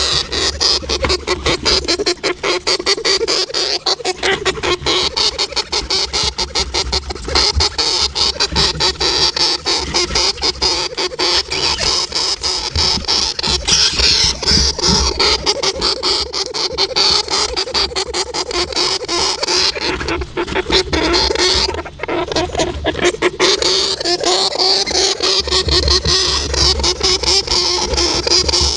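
Hamster making a dense, continuous stream of rapid clicks, with a brief break about two-thirds of the way in.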